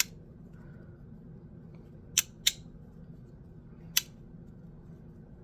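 Bean slider fidget toy, resin on a metal plate, clicking as it is slid in the hand: four sharp clicks, one at the start, two in quick succession a little after two seconds in, and one at about four seconds.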